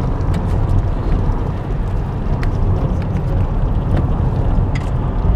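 Car driving on a rough, patched mountain road, heard from inside the cabin: a steady low rumble of engine and tyres, with a few light clicks and rattles.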